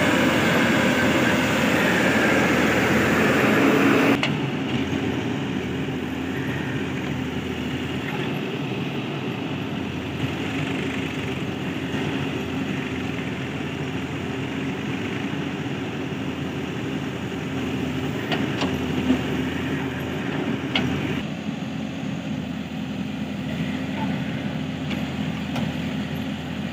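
Diesel engines of a backhoe loader and a tractor running steadily. For the first few seconds soil pours from the backhoe bucket into a steel tractor trolley, and a few sharp knocks come later.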